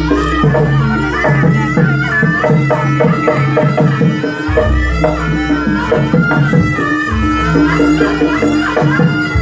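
Javanese jaranan music: a reed shawm (slompret) plays a continuous melody over steady drumming and a deep gong-like bass, which drops out briefly twice.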